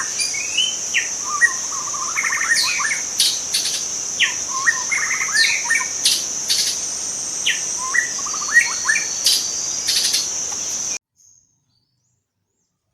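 White-rumped shama singing a run of short, varied whistled phrases over a steady high-pitched insect drone; the sound cuts off abruptly near the end.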